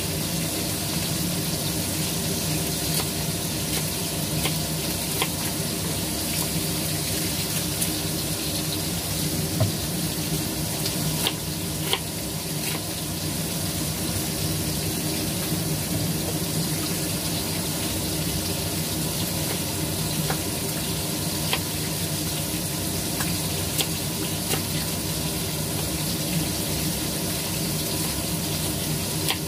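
Steady sizzling of food frying in a pan, over a steady low hum, with occasional sharp taps of a knife on a wooden cutting board as cabbage is sliced.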